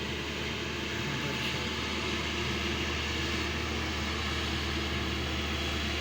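Steady engine drone of road-paving machinery running, with a constant low hum under an even hiss.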